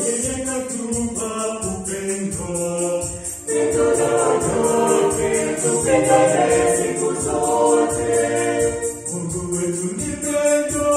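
Small mixed-voice choir singing a Swahili gospel hymn in four parts, accompanied by a Yamaha PSR-S975 arranger keyboard with a steady percussion beat. The singing swells fuller and louder about three and a half seconds in.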